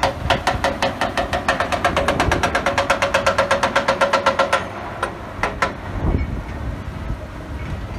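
Hydraulic rock breaker on an excavator hammering rock in rapid, even blows, about ten a second. It stops about four and a half seconds in. After two last single strikes, the excavator's diesel engine runs on low.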